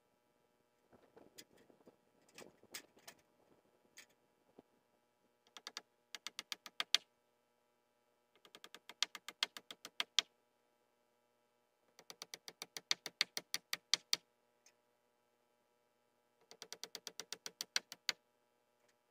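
Power screwdriver driving screws into metal roofing: four separate runs of rapid clicking, each lasting about two seconds, after a few scattered knocks and handling sounds at the start.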